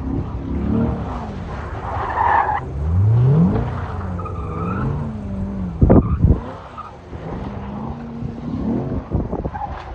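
C8 Corvette's V8 revving up and down as the car slides through cones on wet pavement, with tyres skidding. A short loud burst comes about six seconds in.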